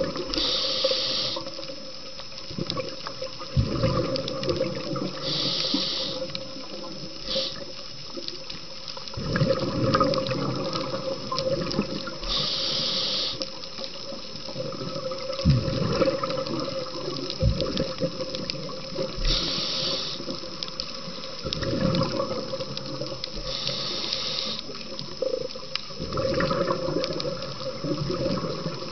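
A scuba diver breathing through a regulator underwater. Each inhale is a short hiss and comes every several seconds; it is followed by a longer gurgling rush of exhaled bubbles. A steady hum runs underneath.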